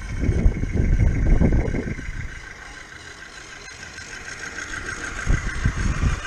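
Small 16mm-scale garden railway locomotive running along the track toward and past, pulling a van and a log wagon: a steady whirr with a fast, even pulse. Heavy low rumbles in the first two seconds and again near the end.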